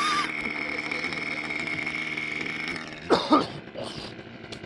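A small model-airplane engine running steadily on the ground with a high whine. Its sound drops about three seconds in, and a short loud vocal sound, like a cough or shout, comes at the same time.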